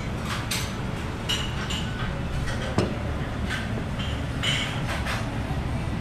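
Restaurant background: a steady low rumble with scattered clinks and knocks of dishes, glass and cutlery, one sharper knock about halfway through.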